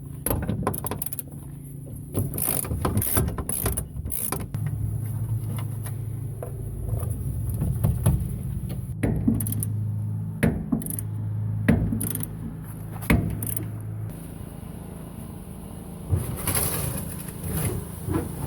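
Hand tools working on a truck's metal body: a run of irregular metallic clicks and clanks, with a ratchet-like clicking. A steady low hum runs through the middle, breaking off briefly and stopping well before the end.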